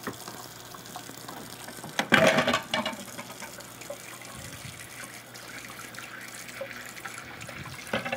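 Kitchen tap running into a stainless steel sink as a spoon and dish are rinsed under it, with a brief louder burst of sound about two seconds in.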